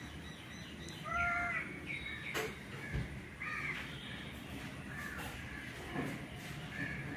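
A series of short, arching animal calls: a stronger one about a second in, a few quick short ones just after, another about three and a half seconds in, and fainter ones near five and seven seconds.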